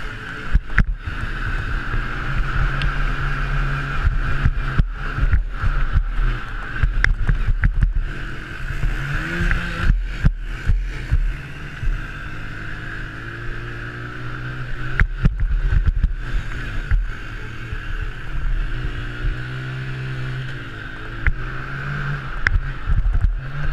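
Honda TRX90 mini quad's small four-stroke single engine revving up and falling off again and again while racing on a dirt track, under rushing wind on a helmet-mounted camera, with frequent sharp knocks and thumps from the bumpy ride.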